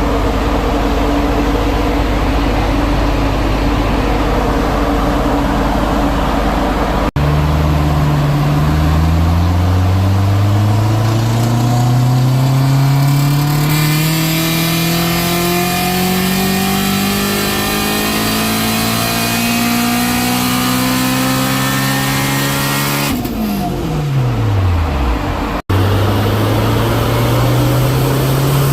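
Turbocharged Honda K20 four-cylinder engine on a chassis dyno. It runs steadily at first, then makes a long pull with the revs climbing steadily for about fifteen seconds and dropping sharply off throttle near the end. Near the close the revs start climbing again on another pull.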